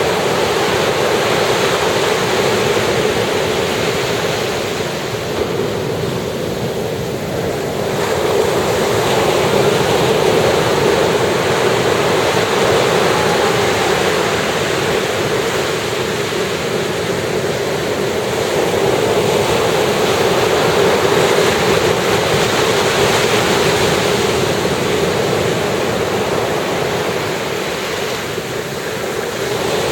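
Ocean surf breaking and washing ashore: a continuous rush of water that swells and eases over several seconds at a time.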